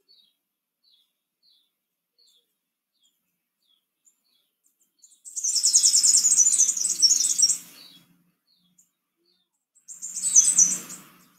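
Bird calling: faint short high chirps about twice a second, then two loud bursts of rapid high twittering, one about five seconds in lasting over two seconds and a shorter one near the end.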